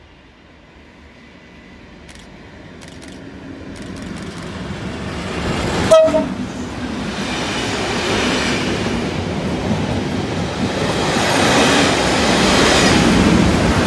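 Colas Rail Class 37 diesel locomotive, with an English Electric V12 engine, approaching and running through at speed on a test train, growing steadily louder. It gives a short horn blast as it passes about six seconds in, followed by wheel and coach noise, and a second Class 37 on the rear passes near the end.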